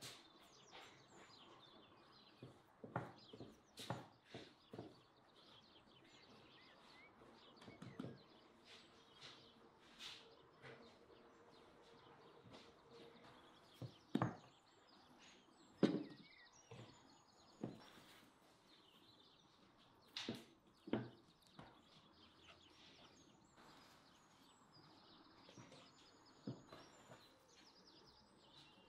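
Soft pats and thuds of hands shaping balls of dough and setting them down on a wooden board, a dozen or so scattered knocks, with faint bird chirps in the background.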